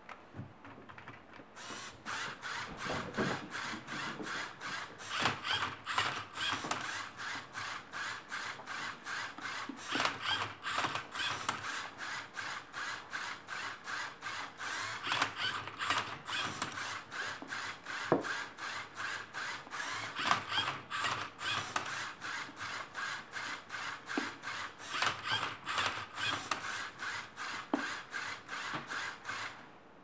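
Motors and plastic gearing of a LEGO Mindstorms EV3 Rubik's-cube-solving robot whirring and clicking in quick repeated moves, about two a second, as the turntable rotates the cube and the arm tips it. The run starts about two seconds in and stops just before the end.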